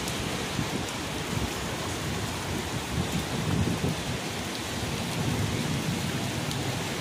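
Heavy rain falling steadily, with a low rumble rising and falling underneath, strongest in the middle.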